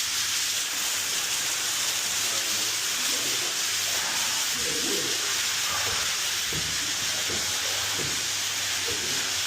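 Pressurised water spraying from a broken plumbing line with a steady, loud hiss; it keeps running because the shut-off valve will not close.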